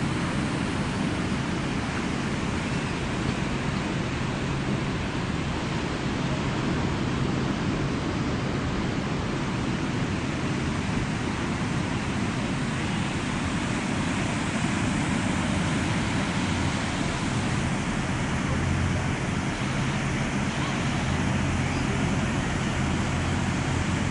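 Steady rushing wash of ocean surf on a sandy beach, with no distinct single waves standing out.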